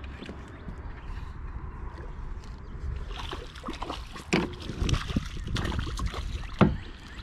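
Water splashing and sloshing beside a kayak over a steady low rumble, with a run of sharp knocks and splashes in the second half, the loudest near the end.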